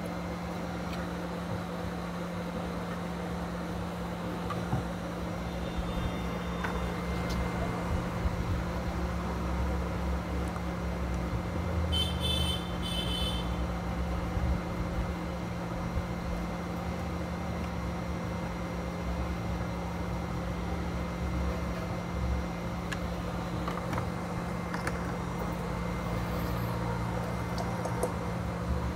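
Steady low hum with an even rushing noise, typical of fan-driven repair bench equipment running. About twelve seconds in there is a brief high chirping beep.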